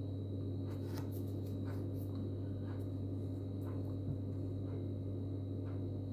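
Faint rustling and light clicks of a small electronics package and its plastic bag being handled, over a steady low hum.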